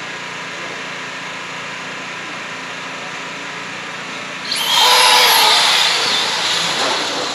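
Radio-controlled cars launching from a standing start: their motors rise suddenly to a loud high whine about four and a half seconds in, then fade as the cars speed away. Before the launch there is a steady low hum.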